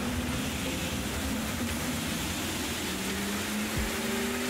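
Steady rushing noise from a BMW iX on a roller test bench as its wheels turn on the rollers, with faint held tones in the background and a single low thump near the end.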